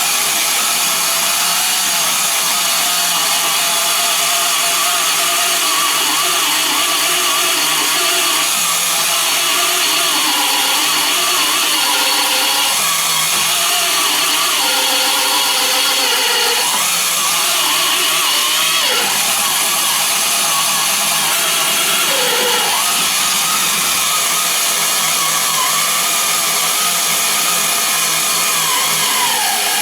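A 28 mm brazed-carbide hole saw cutting through 3 mm steel sheet at low speed, driven by an electric drill on a drill stand. The motor and cutter make a steady run, and the motor's pitch sags briefly a few times.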